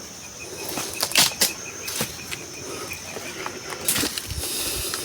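Footsteps and rustling over dry brush and rock, with irregular sharp clicks and crackles. A faint high trill of rapid, even pips runs through the first half or so, over a steady high hiss.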